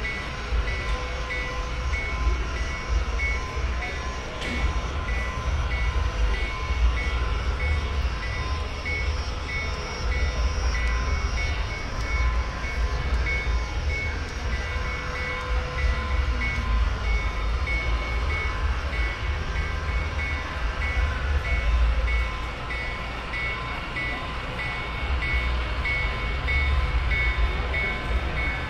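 HO scale model diesel locomotive and hopper train running on a club layout, heard as a steady low rumble with faint steady high tones and a rapidly pulsing high tone.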